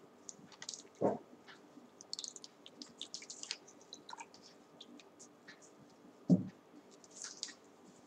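Faint rustling and small clicks from a cloth being wetted in water and handled, with a plastic cup, and two soft bumps.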